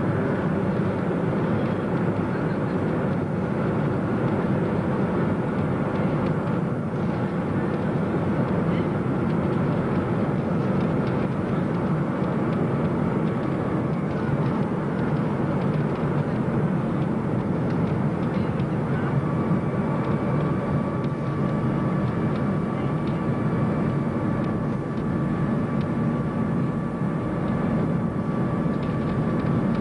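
Boeing 737 cabin noise on final approach with the flaps extended: engines and airflow heard through the fuselage as a steady rush. A steady high whine comes in about two-thirds of the way through.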